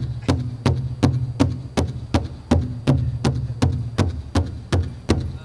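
Powwow big drum struck in unison by a circle of drummers: a steady, even beat of about three strokes a second, the drum heard alone without singing.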